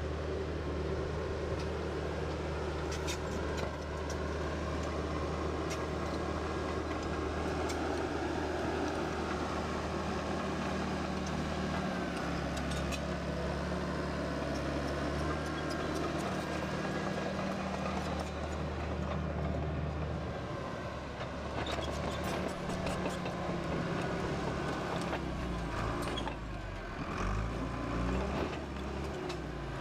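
Bulldozer's diesel engine running steadily under load while it cuts and smooths a swale, with occasional sharp clanks. The engine note shifts about twelve seconds in and again near the end.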